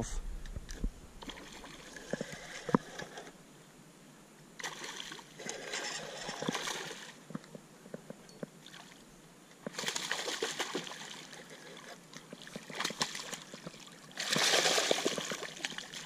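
Hooked smallmouth bass splashing and thrashing at the water's surface while being played on rod and line, in three bursts, the last one just before it is landed.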